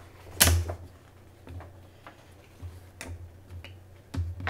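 A few scattered clicks and knocks of craft-kit pieces being handled and set down on a wooden tabletop, the sharpest about half a second in and fainter ones spaced through the rest.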